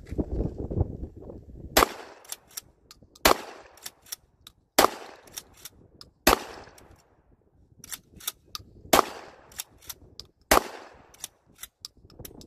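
Dickinson XX3D-M2 12-gauge pump-action shotgun fired six times, about a second and a half apart, with a longer pause after the fourth shot. Between shots come quick metallic clacks of the pump being racked to eject the spent shell and chamber the next.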